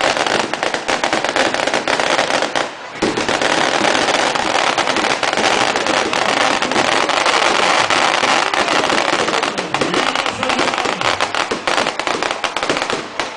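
A long string of firecrackers going off in rapid, dense crackling bursts, with a brief break about three seconds in.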